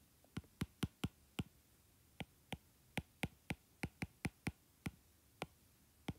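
A stylus tapping and clicking on a tablet screen as numbers are handwritten: a string of sharp, irregular clicks, roughly three a second, with a short pause about a second and a half in.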